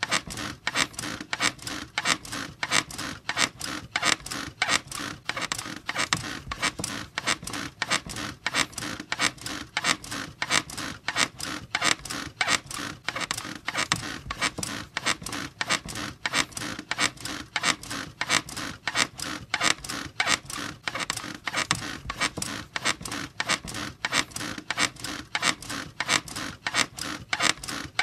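A bed squeaking and creaking over and over in a steady, even rhythm, like a mattress and frame being bounced on.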